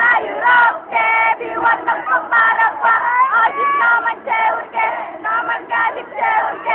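Concert crowd of fans shouting and singing along in unison, high-pitched voices in short rhythmic bursts about three a second, close to the recording phone so the band's music is barely heard beneath.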